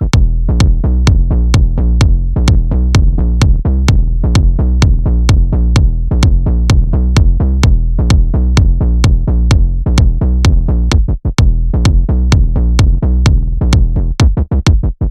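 Electronic dance music with a steady drum-machine beat and heavy bass, briefly dropping out about eleven seconds in.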